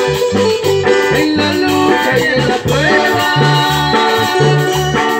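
Live band playing upbeat Latin-style music on drum kit and cymbals, over a steady, repeating bass line.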